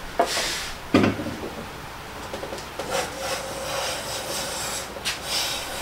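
Cast-iron Siegley No. 5 jack plane knocked down onto the edge of a board about a second in, then starting to plane the edge, its freshly reset iron cutting with a rasping scrape.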